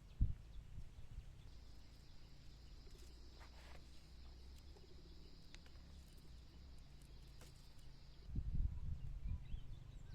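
A steady high-pitched insect buzz, held for about seven seconds and stopping suddenly, over a low outdoor rumble. There is a low thump near the start, and more low thumps near the end.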